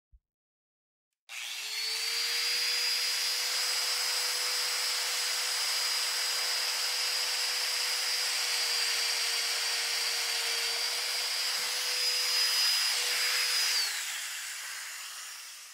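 Festool Domino joiner starting about a second in and running steadily with a high whine while it plunge-cuts mortises into the edge of a hard maple cross piece. It switches off near the end, and the motor spins down with a falling pitch.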